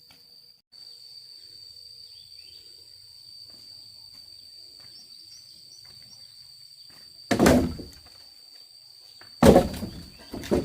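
Two loud thuds about two seconds apart in the second half, with a smaller knock right at the end, over a steady high-pitched insect drone and a few faint bird chirps.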